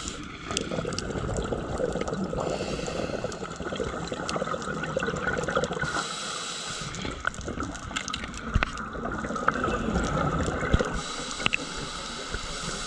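Scuba regulator breathing heard underwater: three short hissing inhalations, each followed by a longer gurgling stream of exhaled bubbles. A few sharp clicks come through as well.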